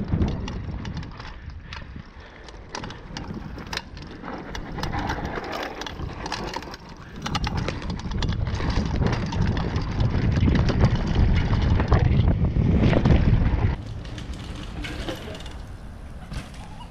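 Mountain bike riding down a dry dirt trail, heard from a handlebar-mounted camera: tyre rumble with many short rattling knocks from the bumps. It grows into a loud rumble about halfway through, then drops back about three seconds before the end.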